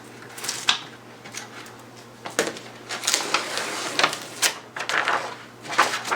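Sheet of skateboard grip tape being handled and laid on a deck: a run of irregular crinkling and rubbing strokes from the tape and its backing paper.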